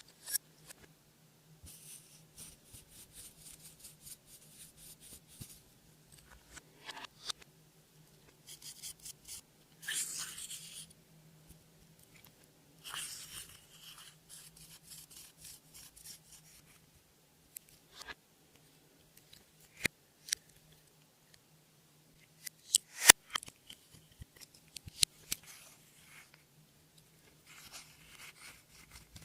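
Slime being kneaded and stretched by hand, giving bursts of rapid sticky clicking and popping with short pauses in between; the sharpest pops come in the second half. A faint steady low hum runs underneath.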